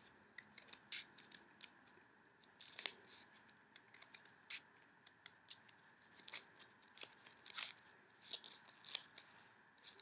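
Scissors snipping through folded paper: a faint, irregular series of short snips, a few of them louder.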